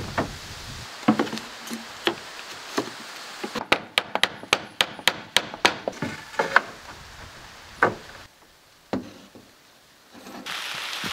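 Hammer blows on wooden boards and trim. Scattered knocks, then a quick run of about a dozen strikes a few seconds in, then a few more single knocks.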